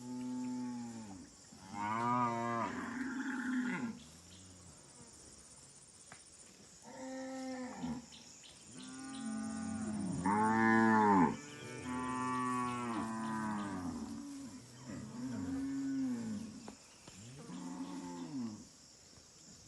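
Cattle mooing, a run of about eight long moos, each rising and then falling in pitch, with a lull of a few seconds about a quarter of the way in.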